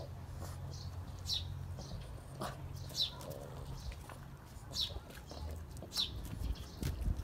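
A small bird chirping, short high notes that fall in pitch, repeated about every one to two seconds, over a low steady hum.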